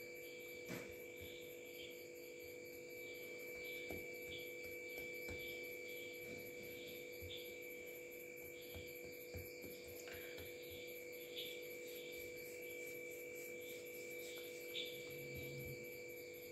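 Faint, steady electrical hum made of several constant tones, with a few faint soft taps scattered through it.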